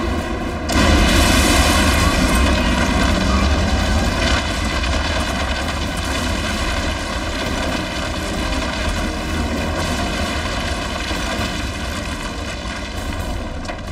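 Sound effect of a huge spaceship's engines: a deep, steady rumbling roar that swells about a second in and slowly eases off as the damaged Decepticon warship comes down to land.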